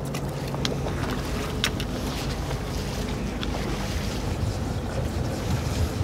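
Fishing boat's engine idling, a steady low hum, with wind on the microphone and a few sharp clicks.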